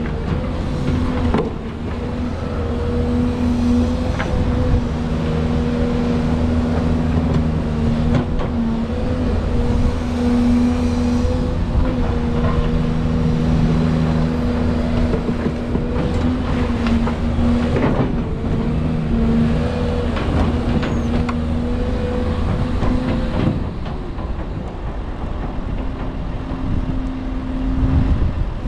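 Volvo EC220 tracked excavator working: its diesel engine and hydraulics run steadily under load, with several held tones that rise and fall slightly as the boom and bucket move. Occasional sharp knocks and scrapes come through over it.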